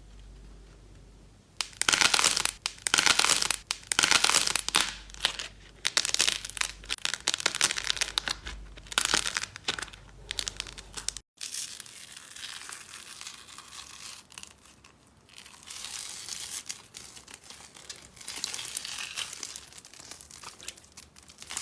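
Slime being squeezed and pressed by hand, a dense crackle of small pops and clicks in surges. It cuts off abruptly a little past halfway, then carries on quieter.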